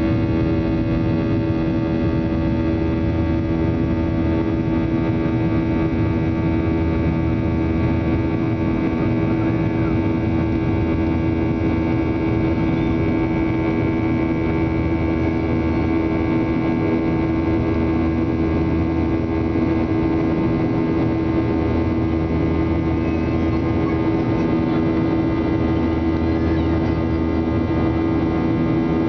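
Steady cabin drone of a climbing airliner: engine and airflow noise with a constant hum, heard from a window seat.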